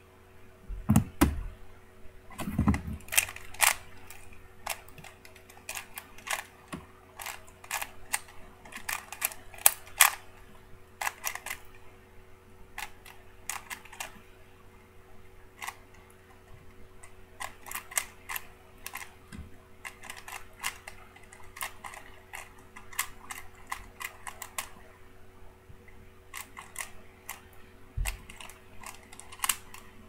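Rubik's Cube layers being turned quickly by hand during a timed solve: plastic clicking and clacking in rapid flurries with short pauses. There are a few low thumps in the first three seconds and one near the end.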